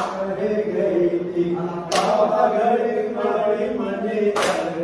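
Group of men singing a garba song together in a chant-like unison, with sharp hand claps about two seconds in and again near the end.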